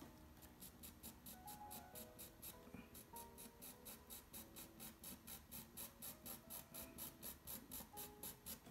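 Coloured pencil scratching on paper in quick, even cross-hatching strokes, about four a second. Faint background music plays under it.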